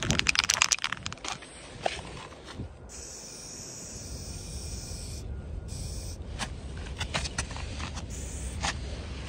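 Aerosol spray paint can shaken hard, its mixing ball rattling in a quick run of clicks, then hissing in short bursts as it sprays paint.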